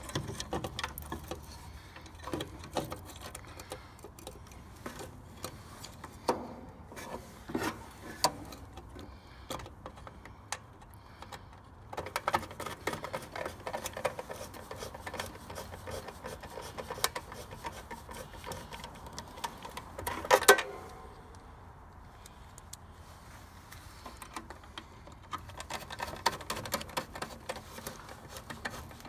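Irregular small clicks, scrapes and rattles of hands and a screwdriver working the wiring and terminals of a heat pump's burnt-up contactor inside the metal control box. There is one louder clatter about two-thirds of the way through.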